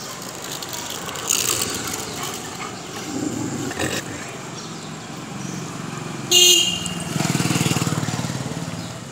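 A vehicle horn honks once, briefly and loudly, about six seconds in. Then a vehicle engine runs close by with a rapid low throb that fades over the last two seconds, over steady street noise.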